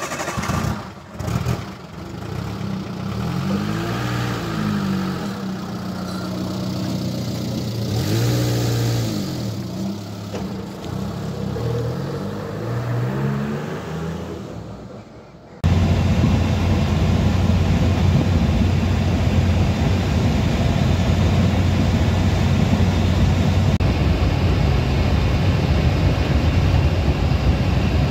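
Suzuki Samurai engine running just after starting, its pitch rising and falling as it revs and pulls away. About halfway through, it changes abruptly to a loud, steady engine drone heard from inside the cabin while driving.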